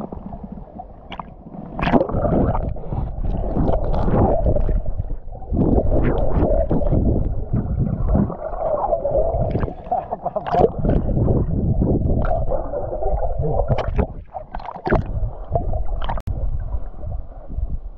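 Muffled, irregular water sloshing and gurgling, with little above the low and middle range and a few sharper splashes scattered through it.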